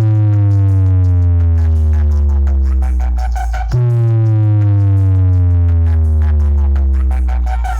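Loud electronic DJ remix played through a sound-system speaker cabinet: a heavy deep bass tone slides steadily down in pitch, cuts off and starts again from the top about three and a half seconds in.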